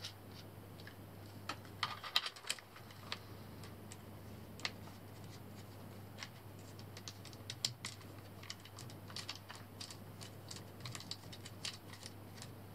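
Scattered light clicks and taps of hands fitting a mount onto a metal Picatinny rail, thicker near the end, over a low steady hum.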